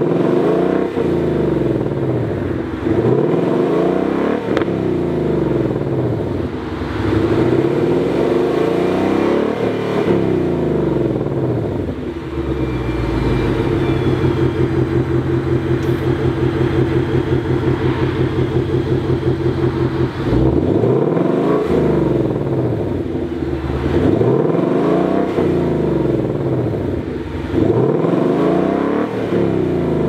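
2020 Ford Mustang GT's 5.0-litre V8 with the factory active exhaust in Sport mode, free-revving at a standstill. There are repeated quick blips that rise and fall, then the revs are held steady for about eight seconds midway, then more blips near the end.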